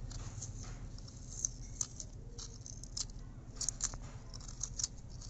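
A metal spoon scraping and gouging the flesh out of the middle of a raw peeled potato: irregular soft scratches and small crunchy clicks.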